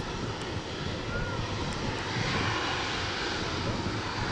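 Boeing 757 jet engines running as the airliner rolls along the runway: a steady rumble with a rushing hiss that grows louder about two seconds in.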